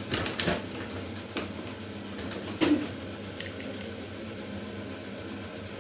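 Crinkling of a plastic bag of Tide washing powder and small knocks of containers being handled, with one sharper knock about halfway through. A faint steady hum runs underneath.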